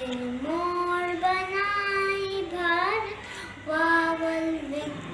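A young boy singing solo, holding long notes that slide between pitches, with short breaths between phrases.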